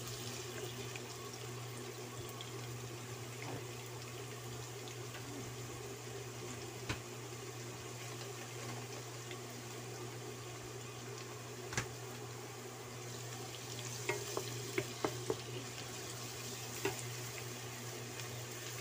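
Chopped garlic and onions sizzling gently in oil in a nonstick wok while a wooden spatula stirs them, with a few sharp taps and scrapes of the spatula against the pan, most of them in the last few seconds. A steady low hum runs underneath.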